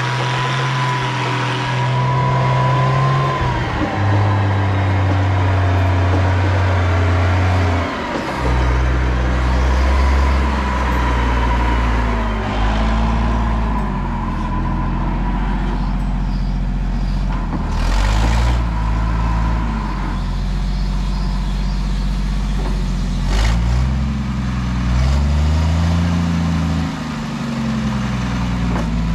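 Lull telehandler engine running under load, its speed rising and falling several times as it works.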